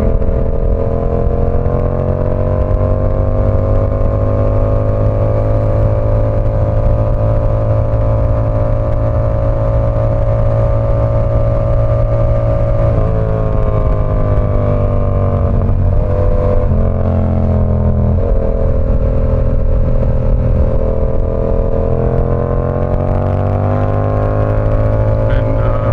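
Yamaha R7's 689 cc parallel-twin engine under way at a steady cruise, its pitch shifting and dipping through the middle as the throttle changes, then rising and easing off again near the end.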